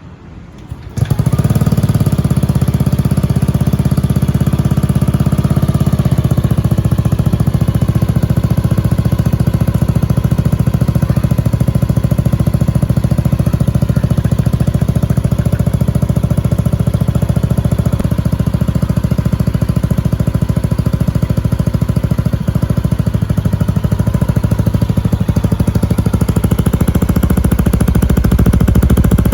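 Yamaha Aerox 155's single-cylinder four-stroke engine idling steadily through an aftermarket McMufflers full exhaust system. The sound comes in about a second in.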